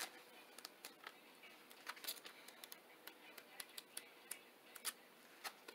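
Pages of an oracle-card guidebook being leafed through: faint, irregular paper flicks and ticks.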